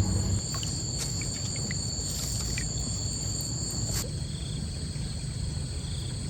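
Insects, crickets or cicadas, calling in a steady high-pitched drone that stops abruptly about four seconds in, over a low rumbling background, with a few faint short chirps.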